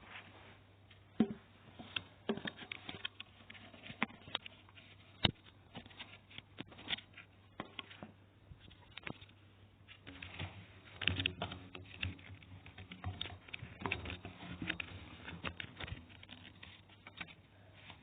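Irregular light clicks and knocks, like hard objects being handled and set down, coming more often in the second half. No motor is running.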